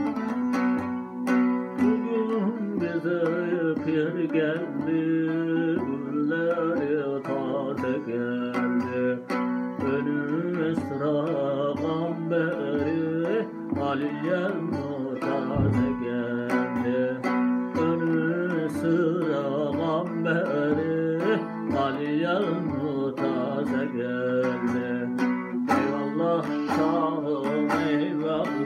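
Bağlama (saz) played with fast, steady plucking, and a man's voice singing a Turkish folk song over it from about two seconds in.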